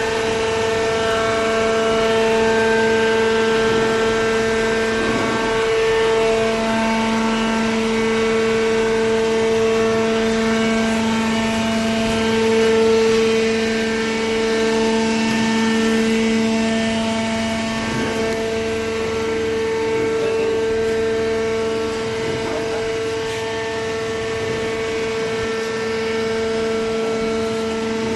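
Hydraulic baler's motor-driven pump running steadily, a constant whine with a strong hum and overtones over mechanical noise.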